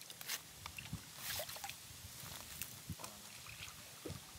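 Faint sloshing and trickling of pomegranate juice poured into a palm-leaf cup and sipped from it, among scattered small clicks and rustles.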